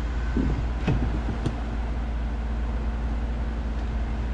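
Parts washer running in the background, a steady low hum with a faint steady tone. A few light metallic clicks about a second in come from the dial gauge and its bridge being handled on the engine block.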